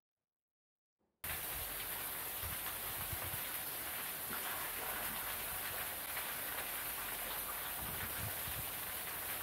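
Silence, then about a second in a steady outdoor hiss cuts in abruptly and runs on evenly, with occasional low rumbles.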